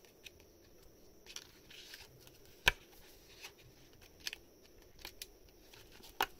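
Oracle card and paper guidebook being handled, with pages turned: scattered paper rustles and taps, the loudest a sharp click nearly three seconds in.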